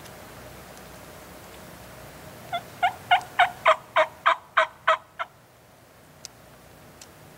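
A series of about ten turkey yelps, about three and a half a second, growing louder and then fading over nearly three seconds.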